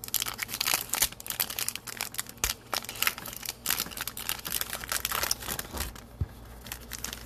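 Foil wrapper of a Panini Prizm basketball card pack crinkling and tearing as it is opened by hand. A dense run of crackles thins out over the last couple of seconds.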